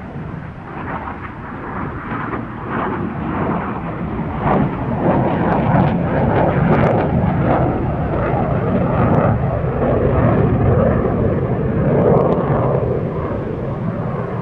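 MiG-21 fighter jet's engine noise overhead: a rough, crackling jet rumble that grows louder over the first several seconds as the aircraft comes closer, then eases a little near the end.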